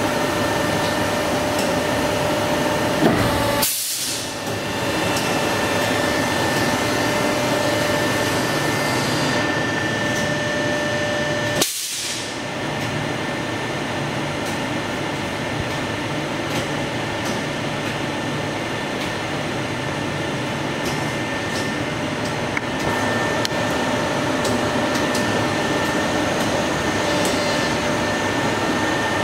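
Soft plastic fishing lure injection machine running: a steady mechanical hum with a faint whine, broken by two short gaps.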